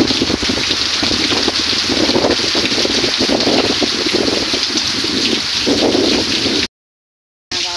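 Heavy rain falling steadily on wet ground and puddles. The sound cuts out abruptly for under a second near the end.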